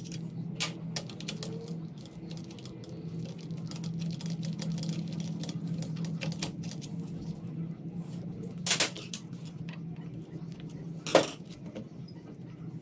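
Irregular metallic clicks and clinks of a hand tool and loose parts on the handlebar clamp bolts of a Yamaha PW80, with two louder clanks, one about two-thirds of the way through and one near the end, over a steady low hum.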